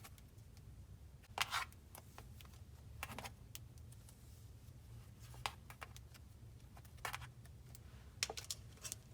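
Cloud slime being squished by hand into a tub: faint sticky clicks and pops, scattered about every second or two, over a low steady hum.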